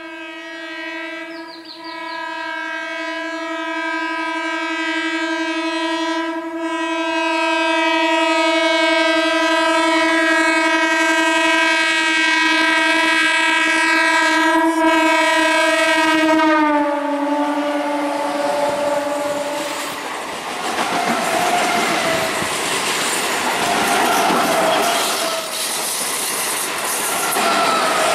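Howrah–Katwa EMU local train sounding its horn in one long, steady blast that grows louder as it approaches, drops in pitch as the cab passes, and stops a few seconds later. Then the coaches run past with the wheels clattering over the rail joints and giving short squeals.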